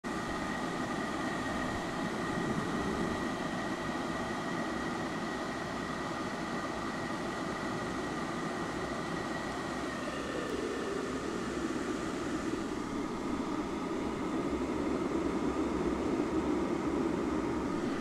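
Water boiling hard in an electric kettle, a continuous rushing bubble. A faint high steady tone fades out about halfway through, and a deeper rumble swells louder near the end.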